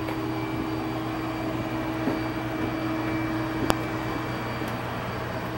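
Steady machinery hum with a faint high whine around a parked Antonov An-24 on the apron. There is a single sharp click about three and a half seconds in.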